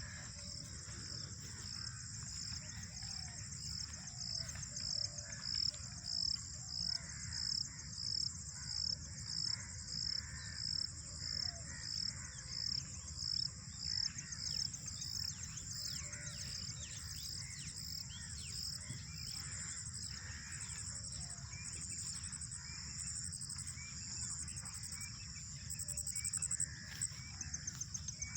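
Birds calling and chirping in trees over a steady high-pitched insect drone. From about four to fifteen seconds in, a high call pulses on and off a bit more than once a second.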